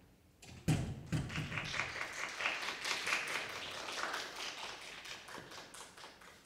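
Small audience applauding, opening with a low thump about half a second in, then dense clapping that fades out near the end.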